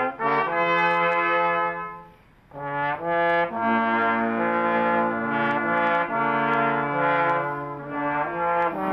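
Brass instruments playing slow music in held chords, several notes sounding together, with a short break about two seconds in before the playing resumes.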